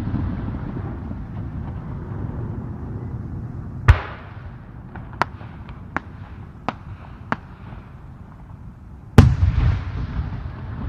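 Japanese display fireworks bursting: a loud boom about four seconds in, four smaller sharp pops after it, then another loud boom near the end trailing off into a long rumbling echo, over a steady low rumble.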